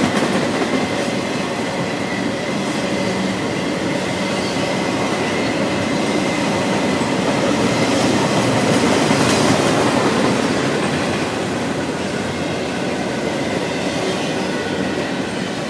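Double-stack intermodal well cars of a freight train rolling past at speed: a steady rumble of steel wheels on rail with the clatter of wheels over rail joints, swelling slightly midway.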